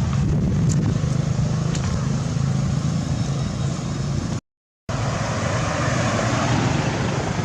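Steady low engine hum of a nearby motor vehicle, with a constant background of traffic noise. It cuts out to complete silence for about half a second, a little past the middle.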